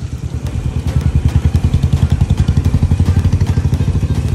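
An engine idling close by: a steady low throb of about a dozen beats a second that grows louder about a second in.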